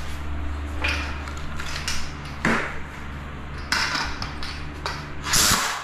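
Handling noises as black disposable gloves are pulled on and a silicone caulking gun is picked up: a few short rustles and scrapes, the loudest near the end, over a steady low hum.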